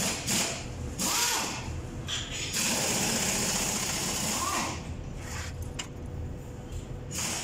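Metal scraping and rattling as hand tools work the pad retainer bar out of a MAN TGS truck's air disc brake caliper: a rasping burst about a second in, a longer stretch of scraping in the middle, a few sharp clicks, and another burst near the end.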